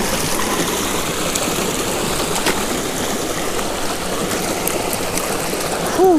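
Small creek rushing and splashing over a low rock ledge, a steady hiss of flowing water. Near the end comes a brief, loud, falling voice-like sound, a short exclamation.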